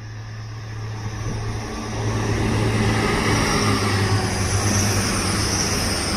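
Grand Central Class 180 diesel multiple unit passing through the station at speed: a steady low engine hum under rising wheel-on-rail noise that is loudest in the middle as the carriages go by, then eases near the end.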